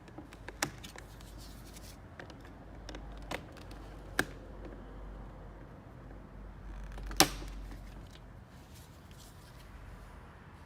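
Sharp plastic clicks and taps as a flathead screwdriver pushes down the clips that hold the emblem on a plastic bumper cover; a handful of separate clicks, the loudest about seven seconds in.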